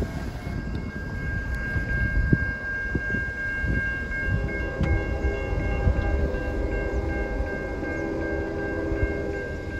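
Grade-crossing signal bell ringing steadily while the crossing is active. From about halfway through, the approaching train's Nathan K5HL five-chime horn sounds in the distance, over a low uneven rumble.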